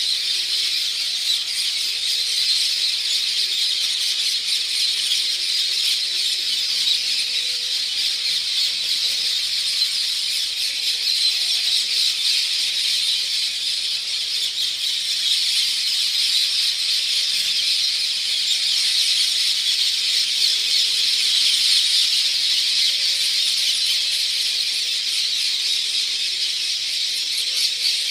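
A large flock of parakeets screeching and calling all at once: a loud, dense, high-pitched chorus that never lets up.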